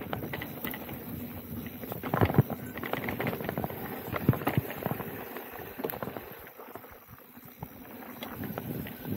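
Specialized Turbo Levo e-mountain bike riding down a dirt trail: tyres rolling over the dirt with irregular clattering knocks and rattles from rocks and roots, easing for a while late on.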